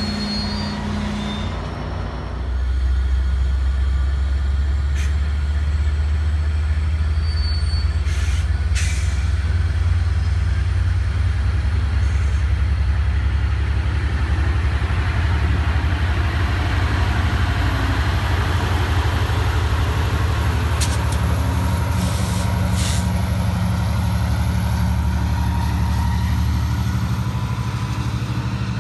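Diesel locomotives of a commuter train throttling up and pulling away. A deep engine drone rises sharply about two seconds in, runs steadily, and eases near the end. A few short hisses of air are heard in between.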